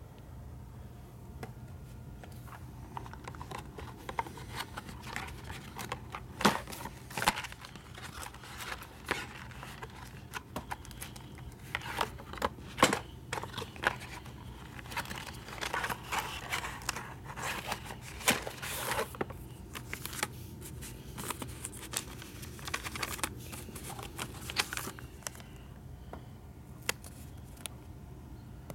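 Hands handling CD packaging and a clear plastic disc sleeve: crinkling, rustling and sharp clicks from about three seconds in until near the end, over a steady low hum.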